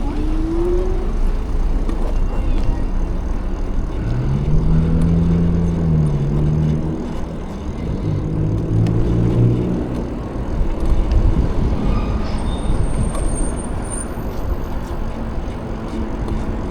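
Wind rush and road noise on a moving e-bike in traffic, with a motor vehicle's engine running alongside and passing from about four to ten seconds in, its pitch rising then falling away.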